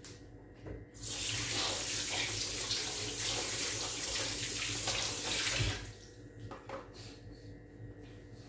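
Water running from a tap into a sink, a steady rush that starts about a second in and is shut off after about five seconds.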